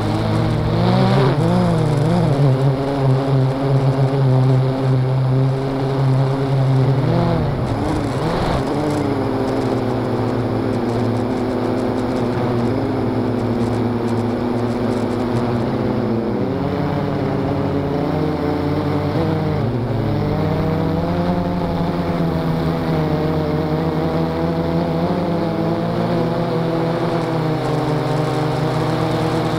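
A Blade 350 QX quadcopter's four brushless motors and propellers whining, heard from on board. Their pitch wavers up and down through the first several seconds and again a little past the middle, and holds steadier in between.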